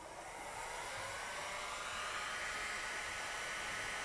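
Handheld hot air gun switched on, its fan spinning up with a faint rising whine over the first second or two, then blowing with a steady rushing hiss.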